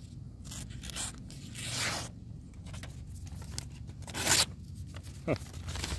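Folding knife's blade dragging and tearing through a sheet of paper in several rasping strokes, the loudest about four seconds in. The blade snags rather than slicing cleanly, a sign the edge has lost a little sharpness, or that the paper is damp.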